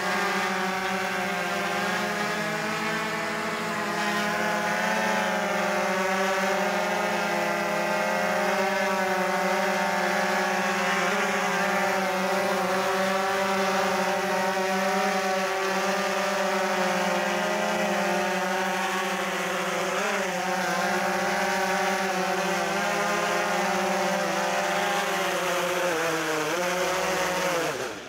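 DJI Phantom 3 Professional quadcopter's four motors and propellers hovering: a steady buzzing whine of several close pitches that waver slightly against each other. Near the end the pitch slides sharply down as the motors slow.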